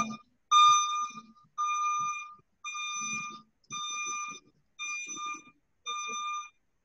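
Metronome beeping steadily, about one high beep a second. The first beep is the loudest.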